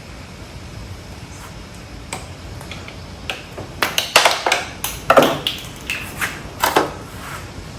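Irregular metallic clinks and taps, some ringing briefly, from a socket, nuts and wheelchair caster parts being handled, starting about four seconds in after a quiet stretch.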